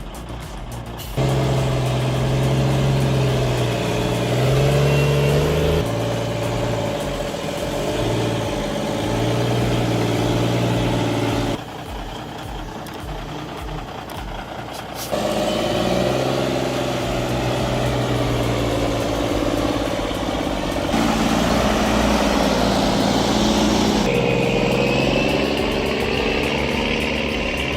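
Heavy log trucks' engines running and labouring, pitch stepping up and down, in several clips that cut abruptly from one to the next.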